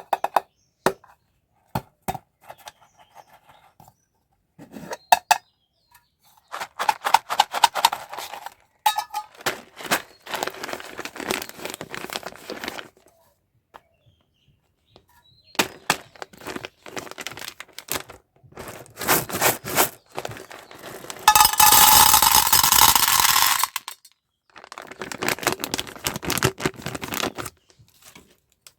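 Sweet and toy packaging being opened by hand: plastic wrappers crinkling and tearing, with scattered clicks and clinks of small hard pieces. The stretches of handling come and go, and the loudest, dense crinkling lasts about two seconds near the end.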